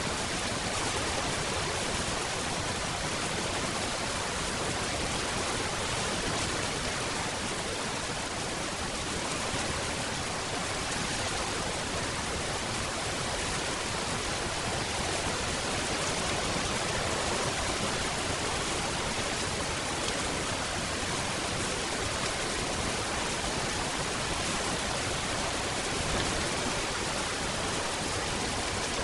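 Steady rainfall: a dense, even hiss of rain with no distinct drops or pauses.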